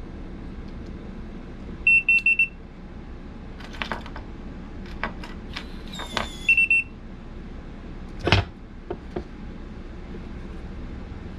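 Electronic RV door lock beeping: a quick run of about four short high beeps about 2 s in, and a shorter run of beeps about 6.5 s in. Between them come scattered clicks and a brief scrape from handling the lock, and a single loud knock a little after 8 s.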